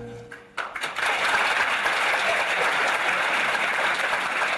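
Audience applauding, starting about half a second in, just as a held note of the music stops.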